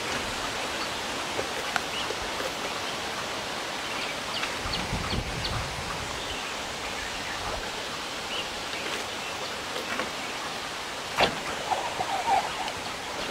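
Steady outdoor background hiss with scattered light clicks and taps, and a sharper knock about eleven seconds in.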